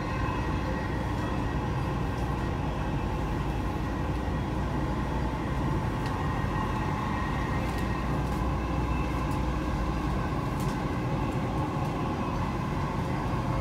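Dubai Metro electric train running at speed, heard inside the passenger car: a steady rumble of wheels on track with a faint constant whine.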